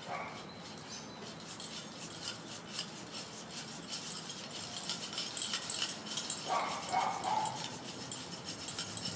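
A dog whines briefly about two-thirds of the way through. Under it runs a string of short, sharp hisses and ticks as the air-pressure water-rocket launcher is pressurised, thickest just before the whine.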